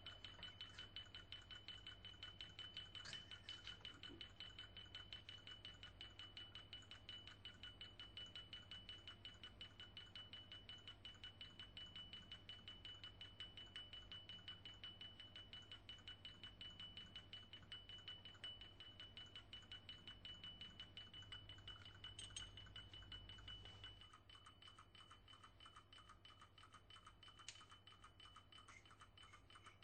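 Faint, steady high-pitched whine with a rapid flutter from the overhead motor spinning the Teflon pestle of a loosely fitted glass-Teflon homogenizer, over a low hum. The whine fades out about 24 seconds in.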